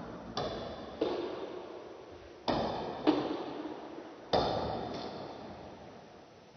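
A table tennis rally: a celluloid ping-pong ball knocked back and forth between paddles and the tabletop. There are about five or six sharp knocks, mostly in pairs roughly half a second apart, and each one leaves a long ringing tail.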